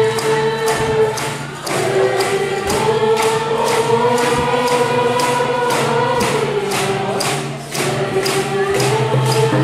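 A group of Coast Salish canoe-family singers chanting a song in unison to a steady beat of frame hand drums, about three strokes a second. They take short breaks between the long sung phrases.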